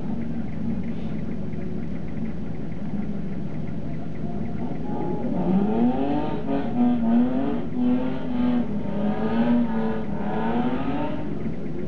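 Toyota Celica ZZT230's 1ZZ-FE 2.0 inline-four engine, heard from inside the cabin. It runs steadily at first, then from about five seconds in it revs up and down repeatedly under changing throttle.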